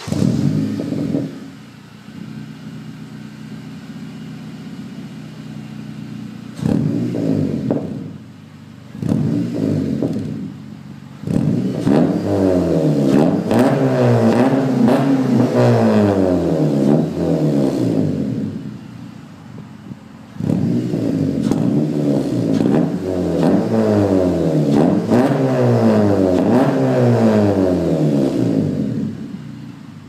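A 2009 Honda Accord Coupe's 2.4-litre four-cylinder engine, heard at its exhaust tip, being revved in place. It blips once at the start, idles, and gives two short revs. Then come two long runs of quick repeated revs, each rising and falling in pitch, with idle between them, before it settles back near the end.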